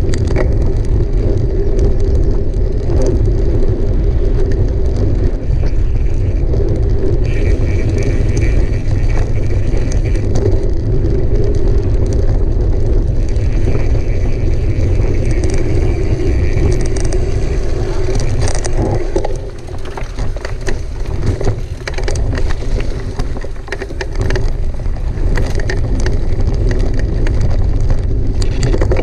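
Mountain bike ridden at race speed: heavy wind rumble on the onboard camera microphone over the rattle and tyre noise of the bike. It eases for a few seconds a little past the middle, where scattered clicks and knocks come through.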